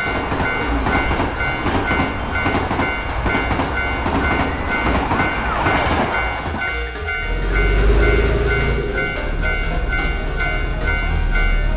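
Japanese railroad crossing bell ringing its repeated 'kan-kan' over the rumble and clatter of a passing train. About seven seconds in, the clatter gives way to a deeper steady hum while the bell keeps ringing.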